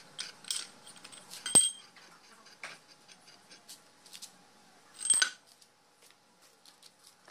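Metal clinks and knocks from an old Simplex screw jack being taken apart, as its threaded lifting screw is spun out of the cast body by hand and pulled clear. Two louder ringing clanks come about one and a half and five seconds in.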